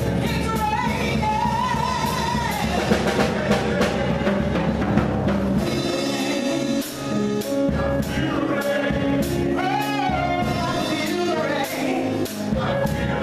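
Live gospel singing: a woman's lead vocal through a handheld microphone, accompanied by electric bass guitar and drums.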